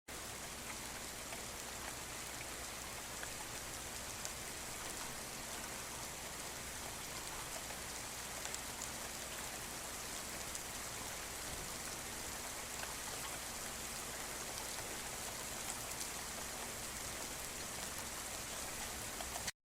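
Steady rain falling: an even hiss, with scattered faint ticks of individual drops.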